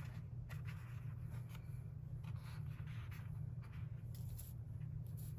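Several short rustles of paper: a sticker book's pages and a crinkled sheet of wax paper being handled and pressed, over a steady low hum.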